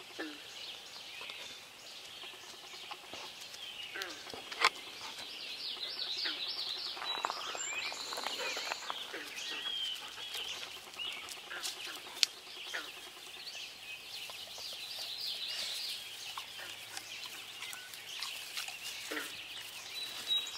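Dawn chorus of many songbirds singing and calling at once, overlapping chirps, trills and whistles at peak breeding season in the northern woods. Two sharp clicks stand out, about five seconds in and again about halfway through.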